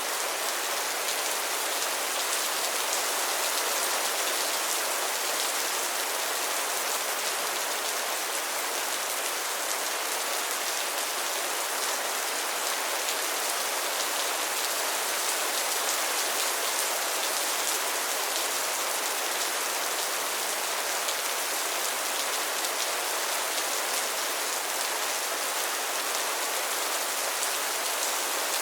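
Steady rain downpour, a constant hiss of many drops hitting a surface with fine pattering detail, with no breaks.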